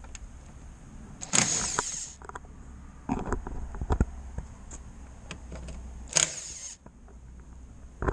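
Cordless impact driver run in two short bursts, about a second in and about six seconds in, backing out the grille's retaining screws. Light clicks and knocks of the tool and plastic being handled come in between.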